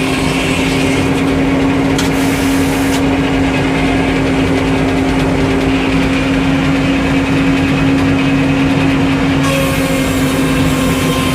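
An engine running steadily at a constant speed, with an even, unchanging hum.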